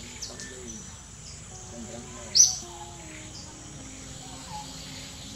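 Outdoor animal ambience: a single loud, short, high-pitched chirp about halfway through, over a steady background with fainter chirps and faint wavering low voices.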